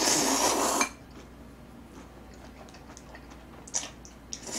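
A loud slurp of jjajangmyeon (black-bean-sauce noodles), lasting about a second at the start. Then a few faint clicks of a utensil against a bowl near the end.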